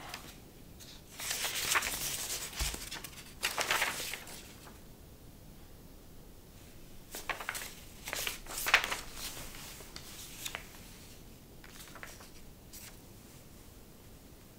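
Intermittent rustling and rubbing handling noises in a small room: several short bursts over the first nine seconds or so, then only a few faint ones.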